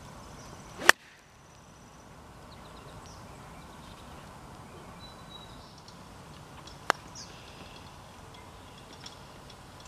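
Hickory-shafted golf club striking a ball off the tee with a sharp crack about a second in. About six seconds later comes a second, lighter click of a shorter stroke near the green, with faint birdsong between.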